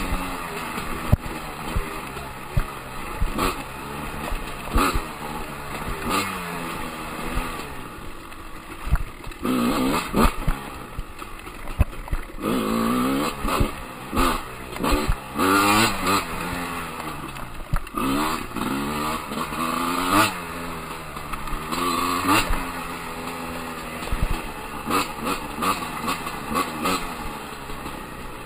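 Husqvarna dirt bike engine revving up and dropping back again and again as it is ridden off-road, with sharp knocks scattered throughout.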